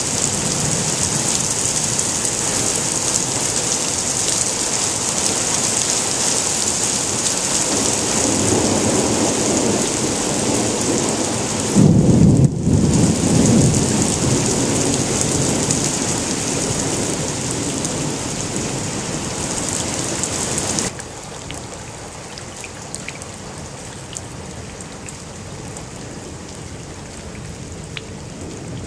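Heavy rain hissing steadily, with a rolling thunderclap that builds about eight seconds in, is loudest a few seconds later, and rumbles on for several seconds. About two-thirds through, the sound changes suddenly to quieter rain spattering around a street drain that is overflowing and cannot keep up.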